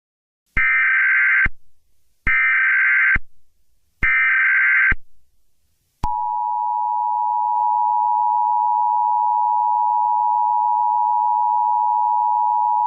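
Emergency Alert System tones: three short, identical bursts of the SAME digital header, then a steady two-tone attention signal that starts about six seconds in.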